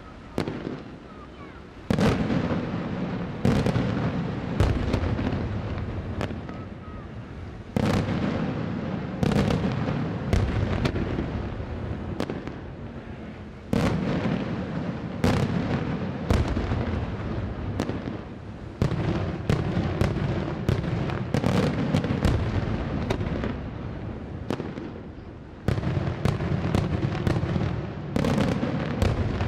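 Daytime fireworks display: aerial shells bursting in a steady run of loud bangs at irregular intervals, some in quick succession. Each bang trails off in a long rumble.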